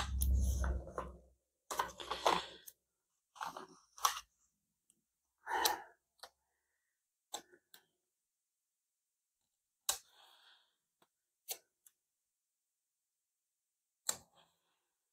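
Paper sticker sheets rustling, with circle stickers peeled off and pressed down onto a paper planner page: a longer rustle in the first second or so, then scattered short rustles and taps with silences between.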